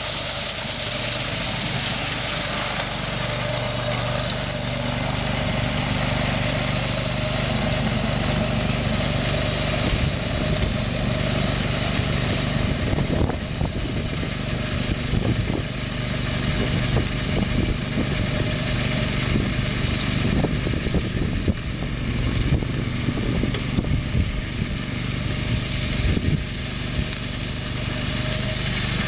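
Engine of a remote-controlled tracked tool carrier running steadily while it drives a snowblower attachment through snow. Irregular knocks and clatters come through the middle stretch.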